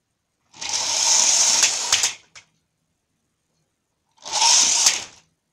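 Small motor of a battery-powered toy train whirring loudly in two bursts with a steady whine, the first about a second and a half long and the second under a second, each ending in a few clicks.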